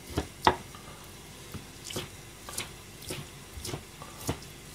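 Knife and fingers working boiled chicken breast on a plastic cutting board: scattered light taps and small wet clicks as the meat is pulled apart and cut.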